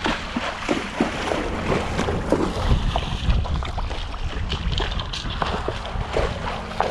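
A pony wading through shallow lake water, its legs sloshing and splashing in an irregular run, heaviest a few seconds in, with wind rumbling on the microphone.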